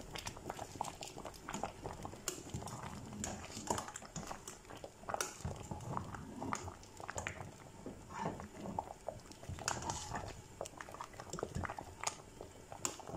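A long metal spoon stirring thick, slimy okra-ogbono soup in a stainless steel pot, with irregular clinks and scrapes of metal on the pot while the soup simmers.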